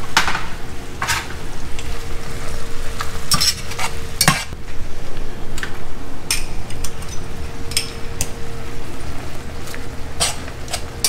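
Cream sauce sizzling and simmering in a stainless steel sauté pan while a whisk stirs it, with sharp clinks of the whisk against the pan and the glass butter dish every second or so. A faint steady hum runs underneath.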